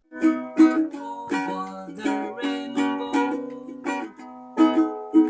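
Ukulele strumming chords in a steady, gentle rhythm: the instrumental opening of a song, with no singing yet.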